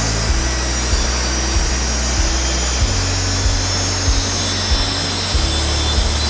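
Festool track saw running and cutting along its guide rail, a steady saw noise, under background music with a steady beat and a stepping bass line.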